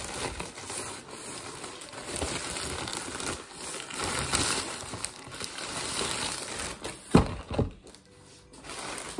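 Packaging crinkling and rustling as bought pastries are unwrapped, with two sharp knocks near the end.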